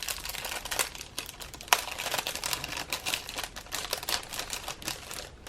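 Packaging being handled and unwrapped: a dense run of irregular crinkles and small clicks, with one sharper snap a little under two seconds in.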